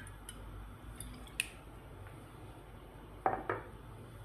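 Faint clicks as a bottle of cooking oil is handled over a mixing bowl, then two knocks a little after three seconds in as the bottle is set down on the stone countertop.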